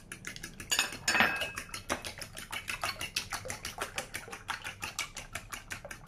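A fork beating raw eggs in a ceramic bowl: rapid, even clicking of the tines against the bowl, with a louder clink about a second in.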